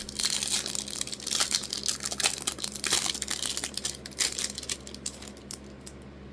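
Foil wrapper of a Panini Phoenix football card pack crinkling as it is torn open and handled. The crackle is dense for the first four seconds or so, then thins to scattered crinkles.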